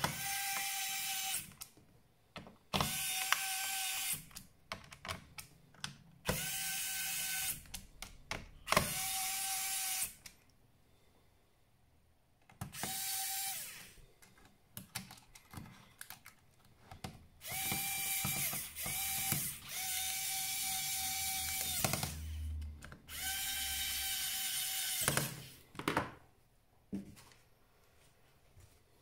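Small electric screwdriver whirring in short runs of one to two seconds, about eight times, driving laptop case screws, with light clicks of screws and parts being handled between runs.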